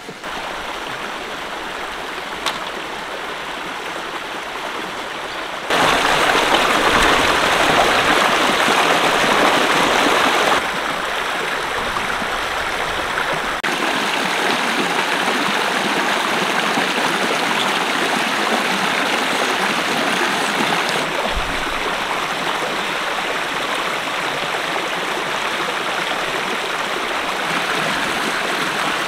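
Fast-flowing stream water rushing over rocks, a steady hiss that jumps abruptly louder about six seconds in and drops back about five seconds later.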